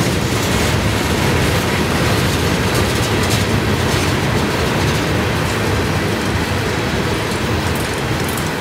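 Covered hopper cars of a slow-rolling CSX freight train passing close by, their wheels making a steady noise on the rails. The noise eases slightly as the last car goes by near the end.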